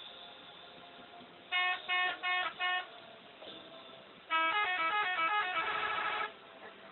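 Bus's telolet musical air horn: four short blasts, then a quick tune of changing notes ending in a warbling tone.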